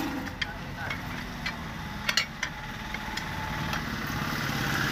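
Steel tyre levers clinking against the steel wheel rim as a 9.00-16 tyre is levered off its rim: a few sharp metal clinks, just after the start and around two seconds in. A steady low engine drone runs underneath.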